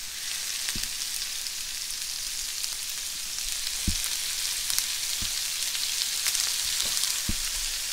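Swordfish steaks frying in a hot pan of garlic-infused olive oil: a steady sizzle with fine crackling and a few low knocks.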